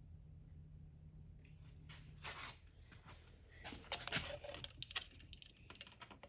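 Irregular scraping, rustling and clicking of electrical wires and connectors being handled and worked by hand in a switch box, over a low hum that stops about two seconds in.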